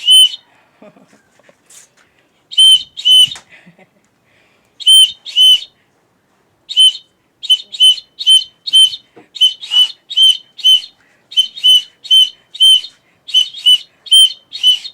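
A hand-held whistle blown in short, shrill toots: a few pairs with pauses between them, then a quick run of toots about two a second through the second half.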